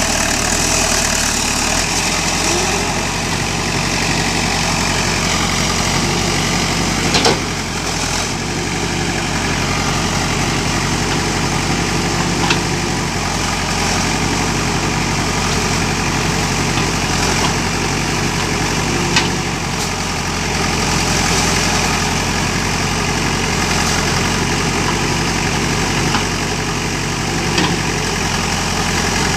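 JCB excavator's diesel engine running steadily, with four short sharp knocks spread through.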